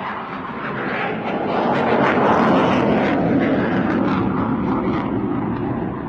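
JF-17 Thunder fighter jet passing in a display flypast, its single Klimov RD-93 turbofan roaring: the jet noise builds, peaks about two to three seconds in, then eases off.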